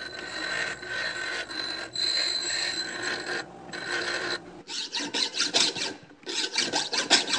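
Bench grinder grinding weld beads down on a steel shaft: a steady grinding hiss with a high whine, easing off briefly about three and a half seconds in. About four and a half seconds in it gives way to quick rasping strokes, a hand file working the welded steel, with a short pause near the end.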